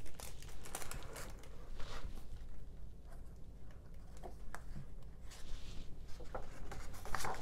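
Pages of a hardcover picture book being opened and turned by hand: scattered soft paper rustles and light taps.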